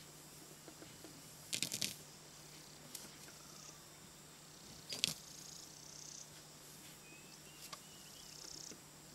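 Quiet outdoor background over a low steady hum, broken by a few short clicks and rustles: a quick cluster about one and a half seconds in and a sharper one about five seconds in. Faint high chirps come near the end.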